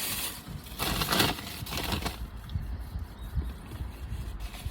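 Close-miked chewing and wet mouth noises from eating sticky mochi, soft irregular pops, with a brief louder hissing, rustling burst about a second in.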